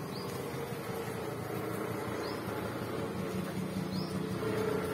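Steady outdoor background noise with a low hum, broken by three short, high chirps spread across it.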